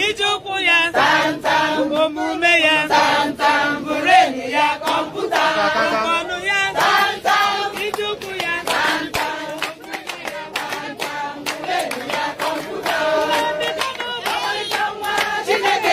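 A group of women singing together in chorus, accompanied by rhythmic hand clapping.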